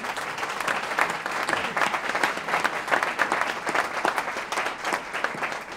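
Audience applauding, with the man at the lectern clapping along; the applause builds over the first second and begins to fade near the end.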